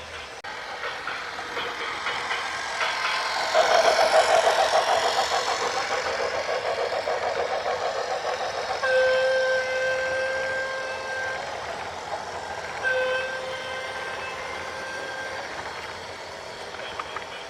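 A heavy vehicle passes close, its rumble growing louder to a peak about four seconds in, then a horn sounds two long blasts of about two and a half seconds each.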